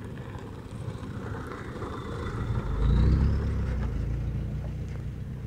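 A truck driving past close by: its engine rumble swells to a peak about three seconds in, then slowly fades.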